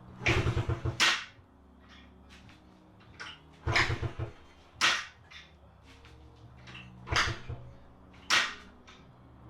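A 1991 Honda Z50R's small single-cylinder four-stroke engine idling steadily, with five short, sharp bursts of louder sound over it that fit quick throttle blips.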